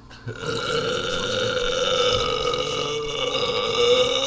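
A man's single long, loud burp, starting a moment in and held at a steady pitch for about four seconds.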